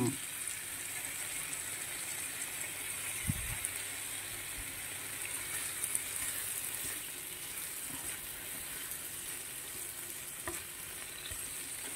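Thin slices of Spanish Serrano ham frying in a nonstick pan, a steady sizzle, with one soft low knock about three seconds in.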